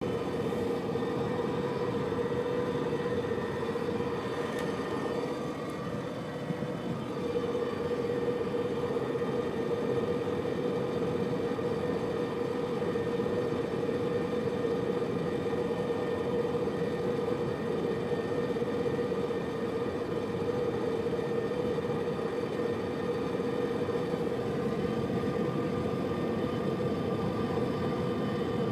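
Subaru Liberty's metal-on-metal grinding noise, heard inside the cabin over road noise as a steady drone with one held tone, easing slightly about five seconds in. It comes on above 65 km/h and keeps going when coasting in neutral until the car slows to 60 km/h, so it follows road speed rather than the engine.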